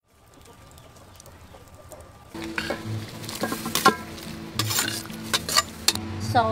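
Raw octopus pieces tipped from a metal colander into a hot aluminium wok, starting to sizzle about two seconds in, with sharp metal clinks as the colander and utensils knock the pan. A rooster begins to crow near the end.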